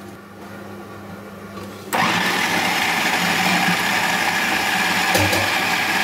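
Electric food chopper switched on about two seconds in, its motor running steadily while the blade chops onion, coriander and green chillies in the bowl.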